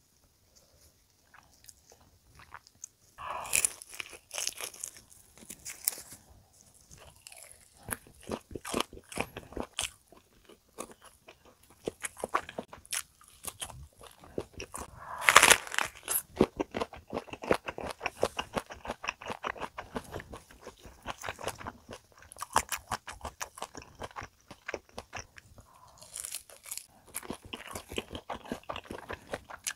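Crunching bites and chewing of a crispy fried chicken wing from a peanut caramel chicken, the fried batter crackling between the teeth. The loudest crunch comes about halfway through.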